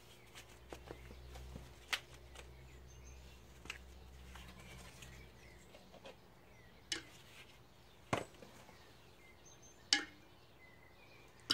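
Faint rustling of hands working compost around a repotted plant, broken by a few sharp taps, with a few bird chirps in the background.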